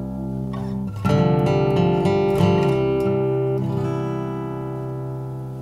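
Acoustic guitar music: a held chord, a strum about a second in followed by a few more notes, then the chord ringing and slowly fading.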